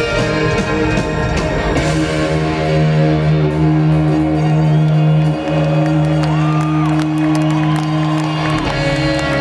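Live rock band music: electric guitar, drums and keyboards holding long sustained chords, with a few sliding notes over them in the second half, recorded from the audience in a large hall.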